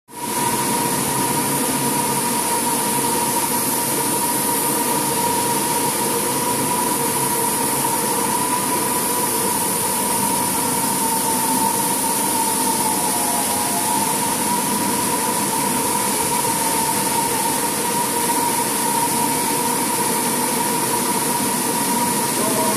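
Vacuum cleaner running steadily: a constant whine over a hiss, its pitch wavering slightly about halfway through.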